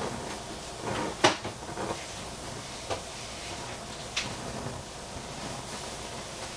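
Steady hiss of lit gas burners under covered stainless pots, broken by one sharp metallic knock about a second in and two fainter clicks later.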